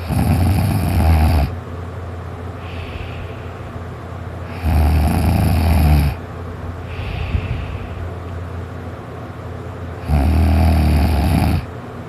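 A person snoring in a nap: three loud snores about five seconds apart, each lasting about a second and a half, with quieter breaths between them.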